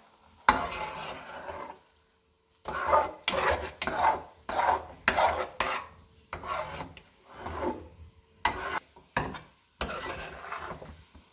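Metal spatula stirring and scraping thick gram-flour halwa around a metal pan, in irregular scraping strokes with a short pause, and a sharp knock against the pan about half a second in and another near the end. The halwa is cooking down and thickening, close to ready.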